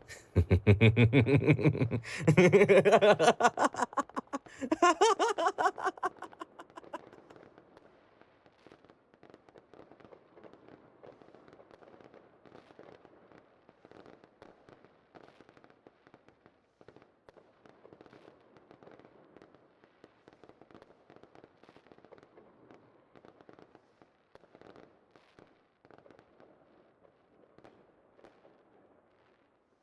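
Fireworks: a loud run of rapid crackling bursts with a low boom over the first six seconds, then faint, sparse crackling.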